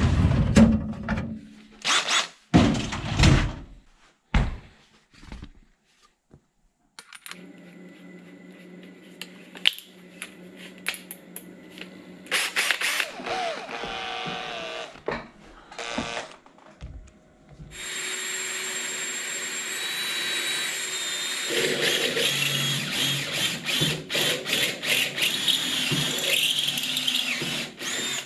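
Knocks and clatter as a cordless drill is pulled out of a tool cabinet, then the drill running with a step bit fitted, its pitch shifting as the speed changes. In the second half a longer, louder run with a rapid chatter as the step bit cuts a hole through the metal roof rack bar.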